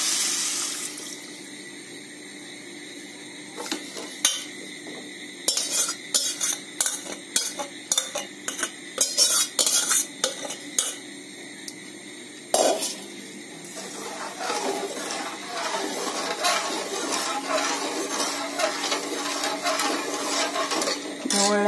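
Milk pouring into a metal pot for about a second. Then a metal spoon clinks and scrapes against a stainless-steel bowl and the pot in many sharp, irregular knocks as the last milk is scraped out. From about two-thirds of the way in, the spoon stirs the milky gourd-and-sugar mixture in the pot with soft scraping and sloshing.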